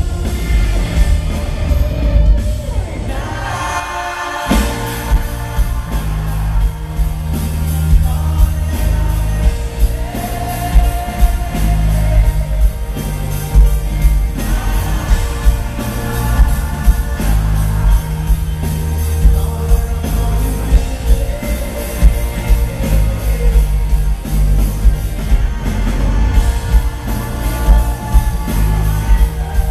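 Live pop-rock band playing with a male lead singer singing over heavy bass and drums. The band drops out briefly about four seconds in, then comes back in full.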